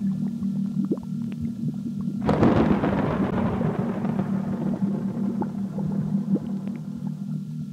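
Dark ambient soundtrack: a low steady drone with scattered faint crackles. About two seconds in, a sudden loud crash of rushing noise fades away over a few seconds.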